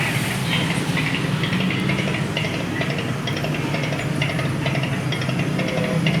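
Odong-odong children's ride running: a steady motor hum with a rhythmic rattle over it.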